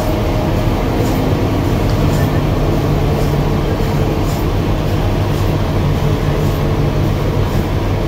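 Sawmill machinery running steadily, a continuous low drone.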